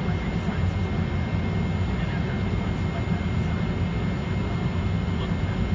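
Cabin noise inside a Boeing 737-400 taxiing: the jet engines at low taxi power give a steady low rumble, with a faint steady high tone above it.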